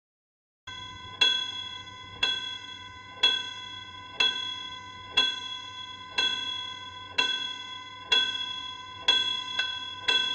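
A bell struck about once a second, each strike ringing on into the next. It comes in suddenly about half a second in, and near the end two strikes come closer together.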